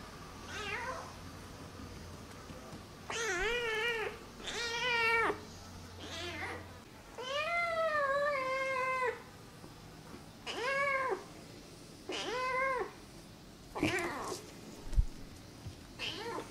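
Young kitten meowing over and over, about eight meows with one long drawn-out one in the middle. A short knock near the end.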